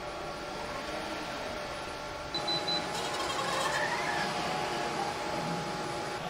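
Electric joint motors of an HRP-5P humanoid robot whining as it lifts a sheet of gypsum board, over a steady mechanical hum. The whine gets louder about halfway through, with a brief high tone and pitches that rise and fall as the arms move.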